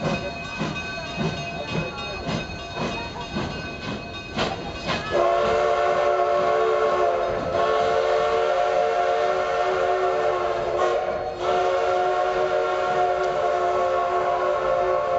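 Narrow-gauge passenger coaches rolling slowly past with clicks and knocks from the wheels. About five seconds in, the steam locomotive's whistle sounds a long, steady chord of several notes, dipping briefly twice.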